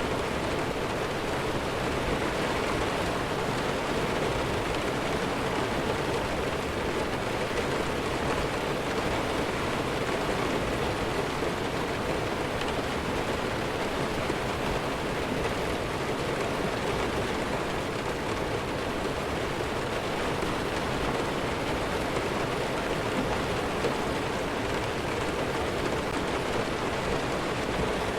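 Steady heavy rain falling, an even, unbroken hiss with no thunder.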